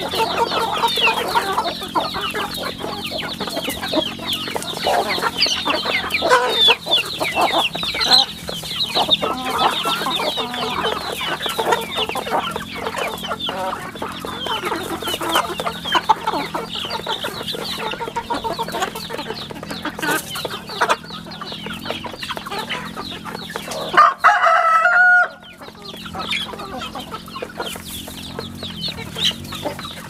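A flock of half-grown chickens peeping and clucking continuously as they feed, many short high calls overlapping one another. Near the end, one louder drawn-out call stands out for about a second.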